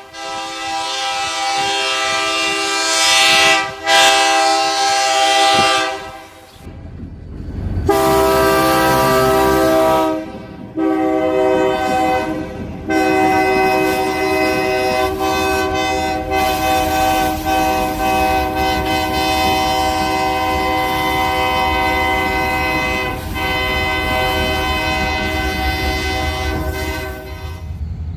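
Diesel freight locomotive's air horn sounding a series of long blasts, with short breaks between them and one very long held blast over the second half. Beneath the later blasts runs the low rumble of the train passing.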